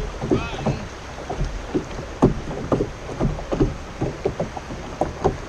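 Irregular light knocks and water sounds on a fishing kayak's hull, over a steady low rumble, with one short bird call about half a second in.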